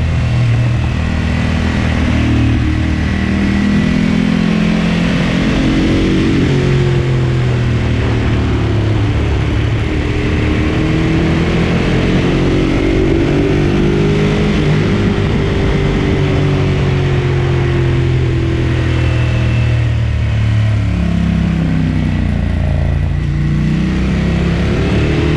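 Ducati Monster 1200 S's L-twin engine under way, its pitch climbing and falling again and again as it accelerates and rolls off.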